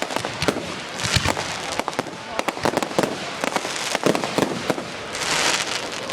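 Fireworks display going off: a rapid, dense run of sharp cracks and bangs, with stretches of hissing crackle about a second in and again near the end.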